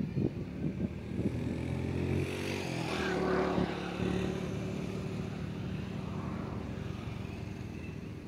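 An engine running steadily, growing louder to a peak about three seconds in and then settling back to a steady level, with a few short knocks in the first second or so.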